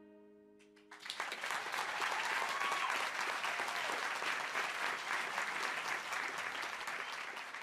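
The song's last held chord fades out, then about a second in a group of people breaks into clapping, which goes on steadily and tapers off near the end.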